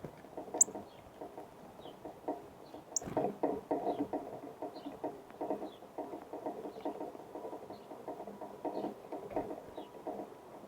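Small birds feeding at a bird feeder: rapid irregular pecking, tapping and scratching at the seed, with faint short high chip calls scattered through and two sharper chips, one about half a second in and one about three seconds in.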